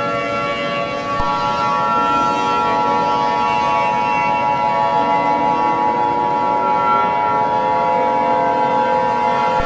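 Emergency-alert siren sound: a loud, steady drone of many held tones sounding together, with slow rising wails beneath it.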